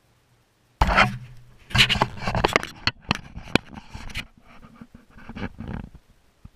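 Close rustling with sharp knocks right against the microphone, starting suddenly about a second in and turning softer after about four seconds.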